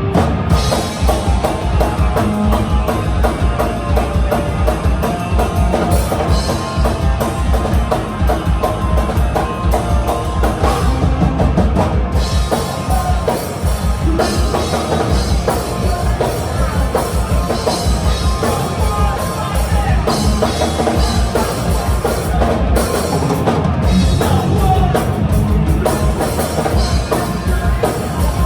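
Punk rock band playing live: loud distorted guitar and bass over fast drums, with some shouted vocals.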